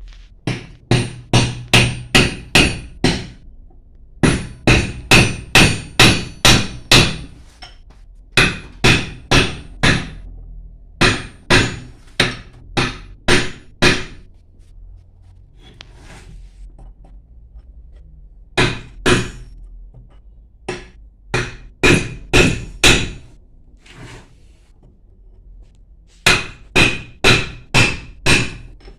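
Hammer striking a steel chisel against the metal of a pump, in quick runs of five to eight ringing blows about three a second, with pauses between the runs.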